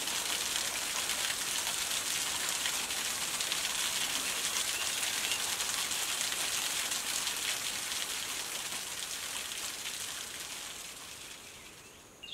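Steady hiss and fine patter of falling water, fading out over the last two seconds.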